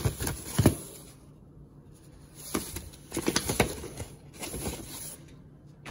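Paper and cardboard being handled: a card slid out of a cardboard box and a paper booklet flipped open, with rustling and a series of short sharp taps and knocks, the loudest about half a second in.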